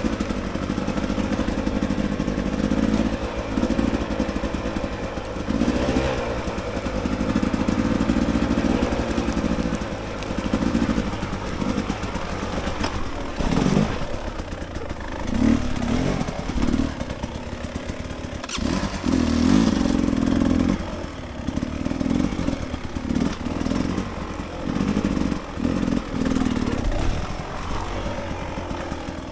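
Dirt bike engine running on a slow singletrack ride, the revs rising and falling over and over as the throttle is opened and rolled off.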